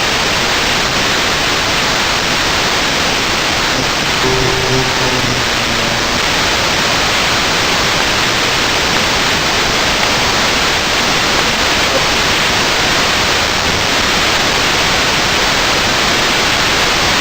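Loud, steady rushing noise like wind or running water, unchanging throughout, with a brief faint pitched sound about four seconds in.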